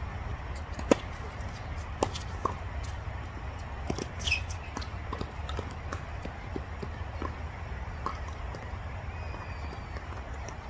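Tennis play on a court: sharp pops of the ball being struck and bouncing, irregularly spaced, the loudest about a second in, and a short high squeak around four seconds in. A steady low rumble runs underneath.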